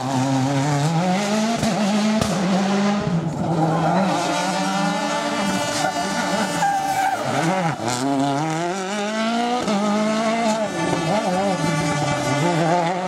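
World Rally Car's 1.6-litre turbocharged four-cylinder engine at racing speed, its pitch climbing again and again and dropping at each gear change or lift off the throttle.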